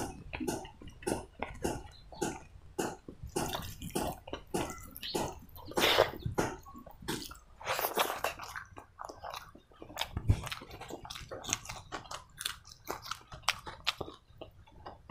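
Wet, smacking chewing of a mouthful of pork curry and rice, with the squelch of curry-soaked rice being worked by the fingers and pushed into the mouth. It comes as a quick, irregular run of short wet clicks.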